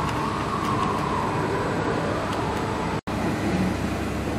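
Roller heat transfer machine running steadily, its rollers drawing lanyard strips and transfer paper through with a constant mechanical rumble and hum. The sound drops out for an instant about three seconds in.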